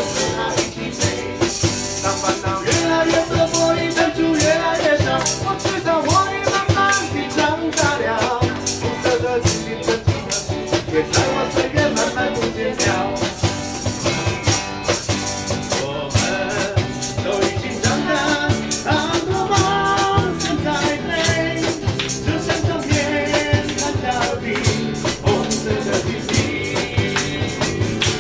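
A small live band playing a pop song: strummed acoustic guitar and electric guitar with a steady percussion beat, and a man singing into a microphone.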